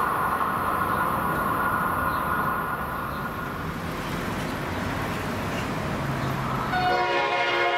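Steady traffic and rail-corridor rumble. About seven seconds in, the approaching train's chord air horn starts to sound, several notes together.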